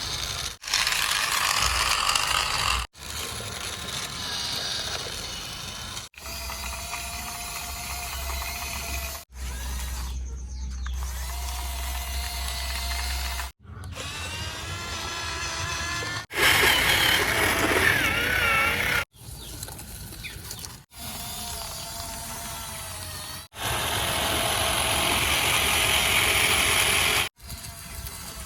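Small electric motors and plastic gearboxes of RC toy construction vehicles whirring, in a string of short segments that start and stop abruptly every two to four seconds, some with a steady whine, one with a wavering pitch.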